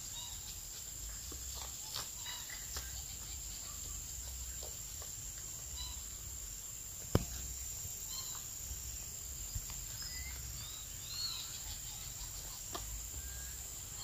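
Caba-trovão social wasps tapping and rasping on their papery nest: scattered faint ticks, with one sharper click about seven seconds in. Under them runs a steady high insect buzz, with a few bird chirps.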